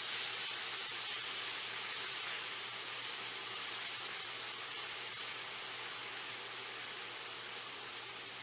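Finely chopped onions sizzling in butter and oil in a frying pan as they are stirred with a silicone spatula, sautéing over medium heat to soften. A steady hiss that fades slightly toward the end.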